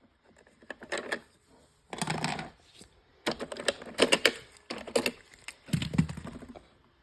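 Robot vacuum being handled, with clusters of sharp plastic clicks and rattles as its brush roll is taken out.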